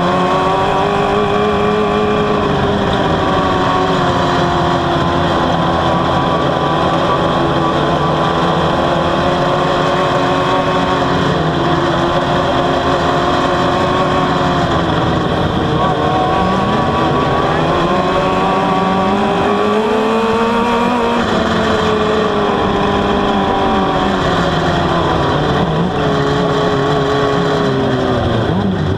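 Open-wheel dirt-track race car's engine at racing speed, heard from onboard, its pitch dropping off and climbing back as the throttle comes off and on through the turns, with other race cars' engines running close by.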